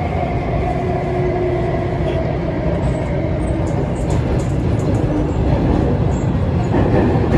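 Inside an SBST C751A (Alstom Metropolis) metro train car while it runs: a steady rumble of the train on the track, with a few faint held tones above it.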